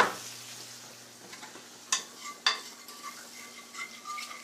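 A frying pan of shrimp with wine just added, sizzling faintly. One sharp knock right at the start, then two light clinks about two seconds in, like a utensil against the pan.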